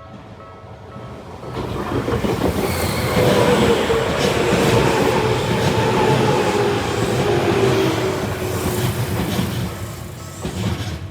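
Tokyu 9000-series electric train passing over a level crossing. The running noise swells from about two seconds in, with wheels clacking over rail joints and a slowly falling whine through the middle, then fades near the end.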